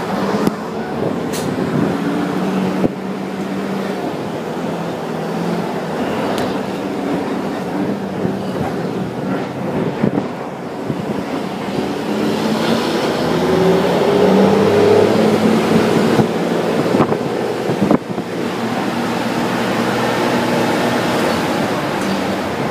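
A motor vehicle running, a steady engine and road rumble, with the engine note climbing about two-thirds of the way through.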